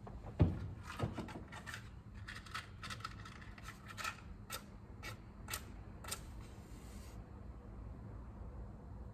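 Small handling noises of a candle being lit: a single knock about half a second in, then a run of light clicks and scrapes, and a short hiss about six seconds in, over a steady low hum.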